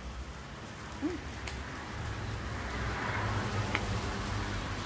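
Steady rain falling, an even patter with a few light clicks.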